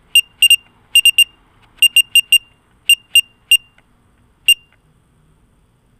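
Short, high-pitched electronic beeps, about fourteen of them in irregular clusters, stopping about four and a half seconds in.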